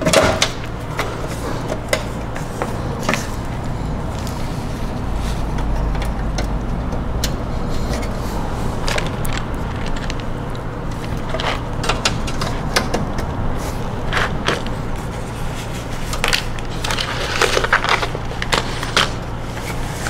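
Handling of a computer power supply being set into a metal PC chassis: scattered light clicks and knocks over a steady low hum.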